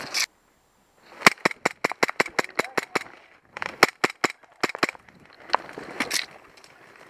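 Airsoft gun firing rapid shots in two quick strings starting about a second in, roughly six sharp cracks a second, with a few scattered shots after.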